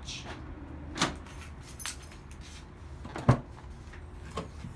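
A few separate sharp clicks and knocks from handling a Toyota Matrix's rear hatch, the loudest about three seconds in, as a hand reaches for the hatch handle under the rear emblem.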